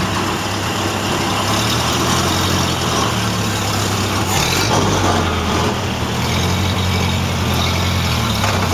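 Model A Ford's four-cylinder flathead engine running steadily, freshly fitted with a new head gasket, as the truck pulls away.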